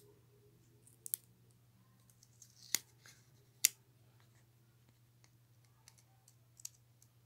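Fingers handling a small plastic toy piece while pressing a sticker onto it: a few sharp, scattered clicks and faint rustles, with a faint steady low hum underneath.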